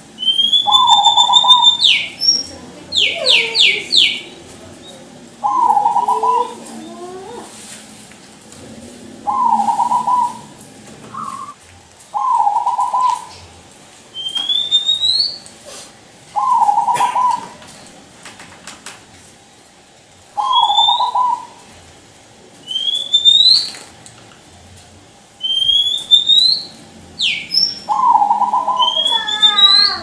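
Zebra dove (perkutut) singing: about seven short cooing phrases spaced every few seconds. Another bird's high rising whistles and a quick run of chirps fall between the coos.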